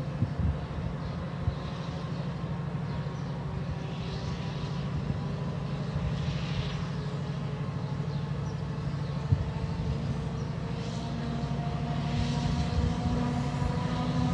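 Colas Class 70 diesel locomotive 70811, its GE PowerHaul V16 engine working under power to lift a train of empty bitumen tankers up a gradient. It is a steady low drone that grows louder as the locomotive approaches, its pitch rising a little over the last few seconds.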